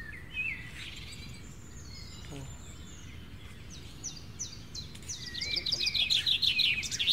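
Birds calling: scattered chirps and short slurred whistles, then a fast, repeated trill that is the loudest part over the last two seconds.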